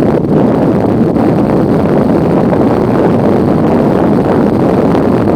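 Loud, steady wind noise buffeting the microphone.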